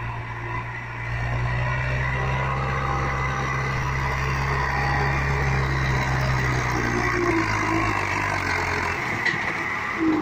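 Hindustan tractor's diesel engine running under load as it pulls a loaded sugarcane trolley past, with a steady low engine note. The note gets louder about a second in and drops away near the end.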